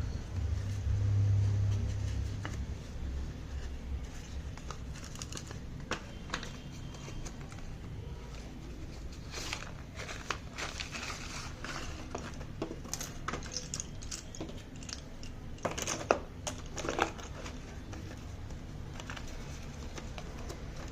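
Parcel packaging crinkling and rustling as it is handled and opened, in scattered bursts with two louder crackles late on. A low rumble of handling comes in the first couple of seconds.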